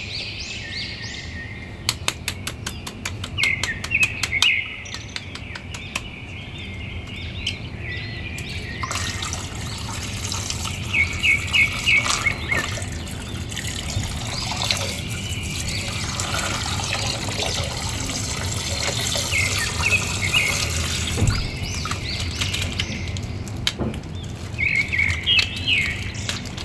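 Small birds chirping in short, quick bursts every few seconds, over water sloshing and a plastic bag rustling as a water-filled bag is handled in a basin. A run of fast clicks comes about two seconds in.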